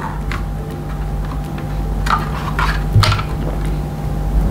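Light clicks and taps of hard plastic toy parts being handled and pressed onto a Playmobil car body: a couple of clicks near the start, a small cluster about two seconds in and a knock about three seconds in.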